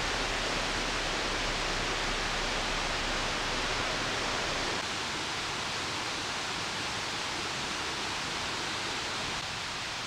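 Steady, even rushing noise of an outdoor forest ambience, with no distinct events. It drops slightly in level and loses some of its low end about five seconds in.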